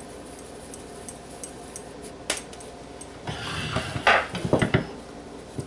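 Kitchen utensils and dishes clattering: a single click a little over two seconds in, then a short scrape with a quick run of knocks, and one last knock near the end.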